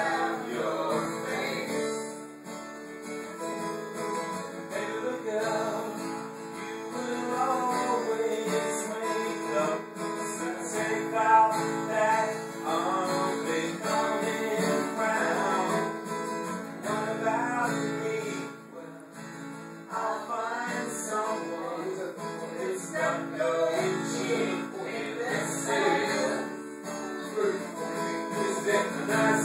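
Music led by strummed acoustic guitar, playing throughout.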